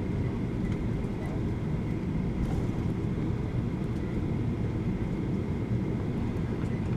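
Steady cabin rumble inside a Boeing 737-800 rolling on the ground after landing, its CFM56 engines near idle, with a faint steady high whine over the low roar.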